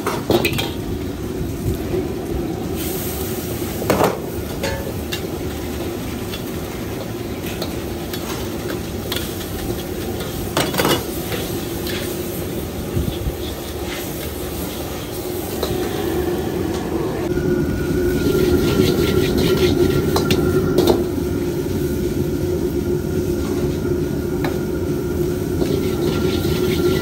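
Wok cooking over a gas burner: the burner's steady noise with food sizzling, and a steel ladle knocking sharply against the wok a few times. The sizzling grows louder about two-thirds of the way through as rice is stir-fried in the wok.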